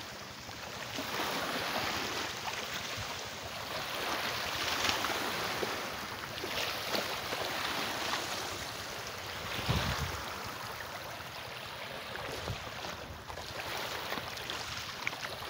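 Small lake waves lapping and washing onto the shore, the water noise swelling and easing every few seconds, with a brief low thump about ten seconds in.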